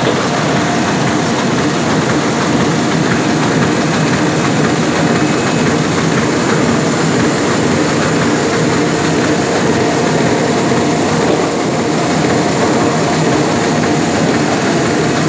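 1996 KBA Rapida 104 sheetfed offset printing press running, a loud, steady mechanical din with faint steady tones in it.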